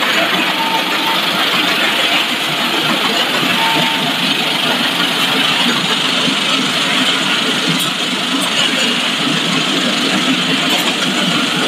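Snack-food production line machinery running: the steady, even din of a continuous frying line and the factory equipment around it, with no pauses or changes.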